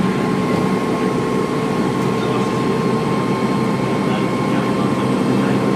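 Dennis Trident II double-decker bus engine running steadily, heard from on board, with a steady high turbo whine over the engine noise.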